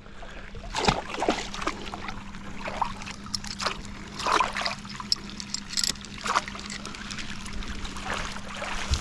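Dam water splashing and trickling in irregular bursts, over a steady low hum.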